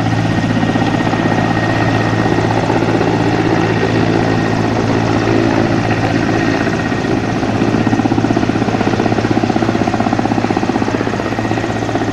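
Aircraft running close by: a loud, steady engine drone with a fast, even pulsing from its spinning blades, the pulsing strongest a little past the middle.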